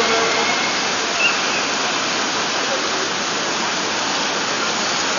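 Steady hiss of rain falling on a large crowd walking under umbrellas.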